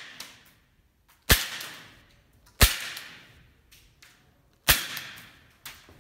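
Three shots from an ASG STI Duty One gas blowback airsoft pistol, each a sharp crack followed by a short echo, the second about a second after the first and the third about two seconds later, with fainter clicks near the end.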